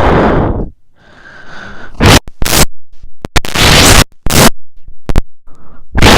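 Exaggerated heavy breathing blown right into the microphone: a long rasping breath, a quieter one, then a run of short, loud puffs and gusts.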